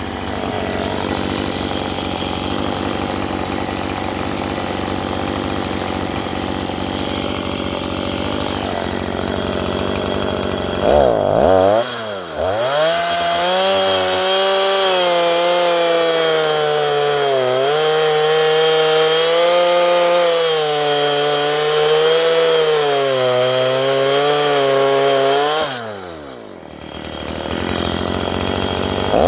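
Stihl MS 162 two-stroke chainsaw running at high revs while ripping a fence post lengthwise. For the first eleven seconds the sound is rougher and noisier; then the engine note comes through clearly, wavering up and down under load; near the end the revs drop sharply and then rise again.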